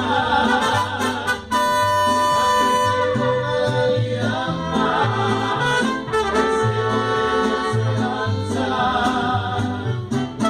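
Mariachi band playing, trumpets carrying held notes over a bass line that moves note by note to a steady beat.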